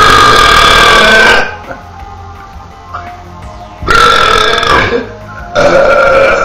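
Three long, loud belches, the first lasting about a second and a half, the second about a second, and the third starting near the end, over steady background music.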